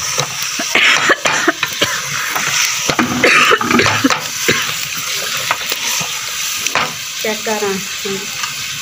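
A wooden spatula stirring and scraping thick chicken and drumstick curry in a large aluminium pot as it fries, over a steady sizzle, with louder scrapes about a second in and again just past three seconds.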